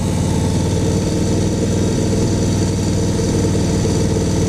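A 2014 Harley-Davidson Softail Slim's air-cooled V-twin engine runs steadily at low, even road speed on a gravel road, heard from the rider's seat with a steady hiss of wind and road noise.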